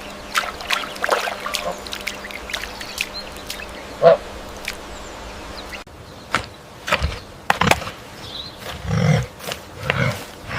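Animal sounds: scuffling and clicking, a single short call about four seconds in, and low, throaty calls near the end.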